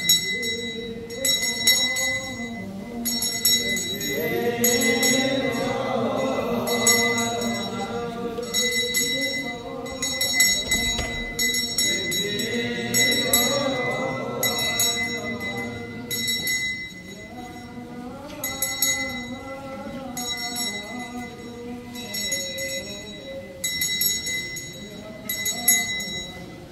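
Small liturgical bells jingling in a steady rhythm about once a second, with a clear ringing tone, under chanting voices.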